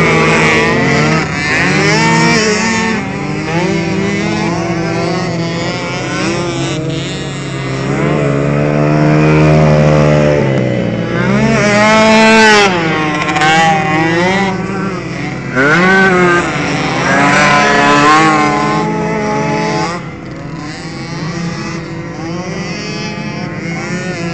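Several motocross race engines revving, overlapping, their pitch climbing and falling as they accelerate and shift. Louder through most of the stretch, dropping back for the last few seconds.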